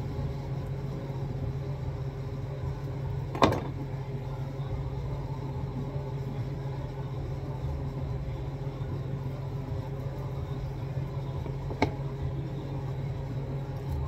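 Steady low hum of room machinery, with two sharp knocks, one about three and a half seconds in and one near the end, during knife work on raw poultry.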